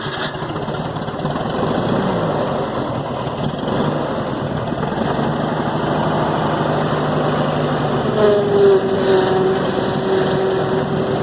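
Gehl 4400 skid steer loader's engine running at idle just after starting, a steady mechanical run. About eight seconds in, a whine joins it, dipping slightly in pitch and then holding steady.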